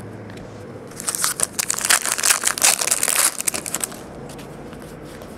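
Crinkling and rustling of a trading-card pack's foil wrapper being handled and opened, for about two and a half seconds starting a second in.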